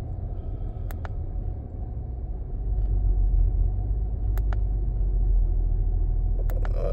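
2005 Acura TL's V6 engine idling roughly with a low rumble that gets louder about two and a half seconds in; the uneven running comes from a misfire the scan tool is not pinning to any cylinder.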